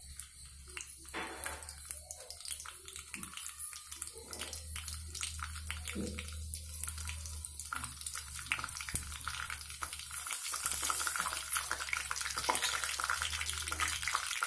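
Mustard and cumin seeds frying in hot oil in a steel kadai, a sizzle with a dense crackle of pops that grows louder in the second half. This is the tempering (popu) stage of the pickle.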